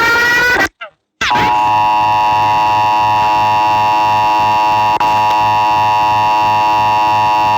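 Mock Emergency Alert System alarm: a rising, sweeping alert tone ends, there is a short gap, then a steady, harsh attention signal of several tones near 1 kHz sounds over a low pulsing undertone and cuts off at the end.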